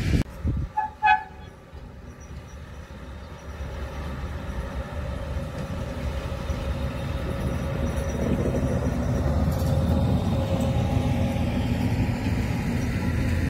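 Two brief horn toots about half a second apart right at the start. Then a freight train on the move: a diesel locomotive and its wagons, a low rumble that swells for several seconds and then holds steady.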